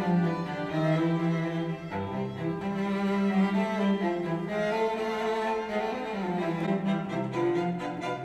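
Classical string music led by a cello with sustained low notes and violins above, played through Klipsch powered bookshelf speakers and recorded by a microphone in the room. Deeper bass notes come in near the end.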